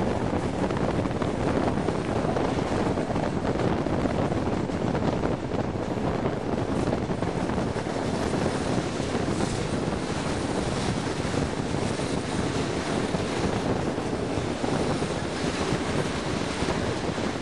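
Wind rushing over a microphone held out of a moving train's window, with the train's running noise beneath it, steady throughout.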